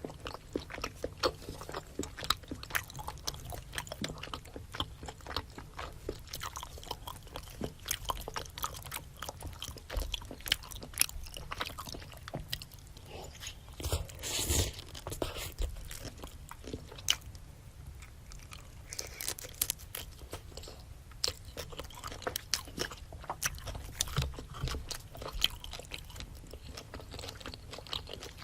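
A person biting and chewing a spicy seafood boil close to the microphone, with many short crunchy clicks and one louder burst about halfway through.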